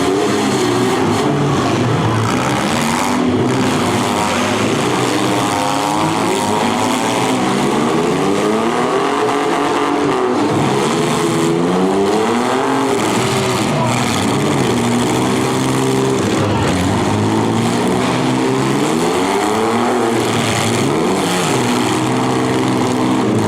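Several demolition derby cars' engines revving, their notes overlapping and rising and falling over and over.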